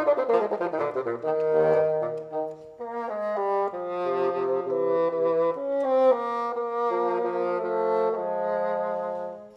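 Two bassoons playing a duet: a run of quick notes at first, then slower held notes in two parts, a low line under a higher one. The playing fades and stops just before the end.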